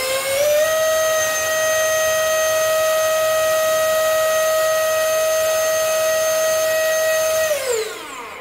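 Ducted fan whining as it finishes spinning up, then holding a steady high whine with several overtones at constant speed for about seven seconds, before its pitch and loudness fall near the end as it slows back down toward idle.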